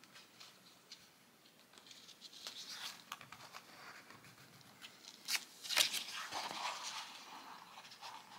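Hands handling a paper soft-cover journal and its sewing thread on a cutting mat: paper rustling and scraping with scattered small clicks, growing busier after about two seconds, and two sharp clicks past the middle.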